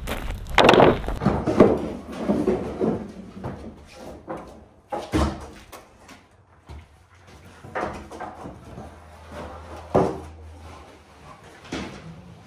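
Wooden lumber boards knocking and clattering as they are carried and set down on a stack. The knocks come separately, the loudest about half a second in and again about ten seconds in.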